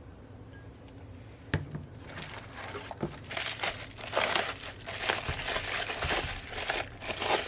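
A single sharp knock about a second and a half in, then bubble wrap crinkling and rustling steadily as it is handled around a glass.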